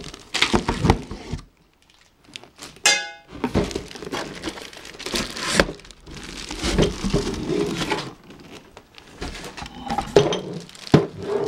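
Cardboard box and plastic wrap rustling and scraping as the cart's metal mesh tiers are lifted out of the packaging, with knocks and a short metallic ring about three seconds in.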